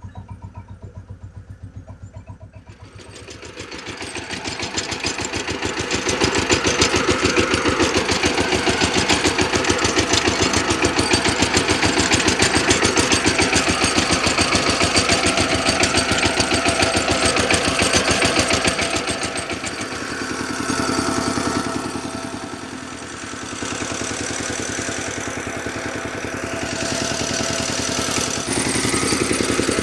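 Engine of a ploughing machine running under load in a field. It grows louder from about three seconds in, runs steadily with an even throb, eases off briefly past the middle, then picks up again.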